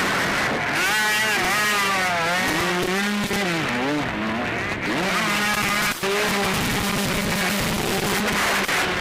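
Motocross bike engines revving hard and easing off again and again, several bikes overlapping, their pitch rising and falling as they accelerate and back off over a steady noisy background. A single sharp click about six seconds in.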